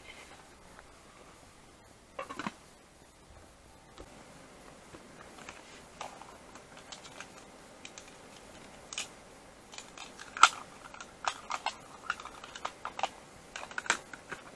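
Small sharp clicks and light taps of plastic and metal camp cooking gear being handled, a few scattered at first and then a quick run of them in the last few seconds.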